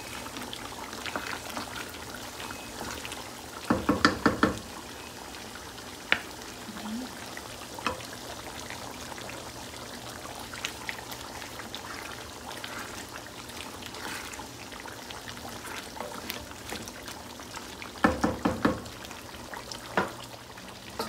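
Pork and chicken adobo simmering in a granite-coated pan: a steady bubbling sizzle with scattered pops. It is broken twice by a short run of rapid knocks, about four seconds in and again near the end.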